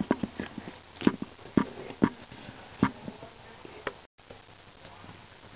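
Handling noise: about six sharp, irregular taps and knocks from small plastic toy pieces being moved about on a hard surface. They stop after about four seconds.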